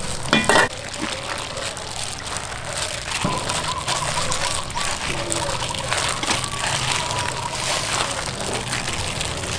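A plastic-gloved hand mixing water into flour in a stainless steel bowl, a steady crackly rustling of glove and wet flour.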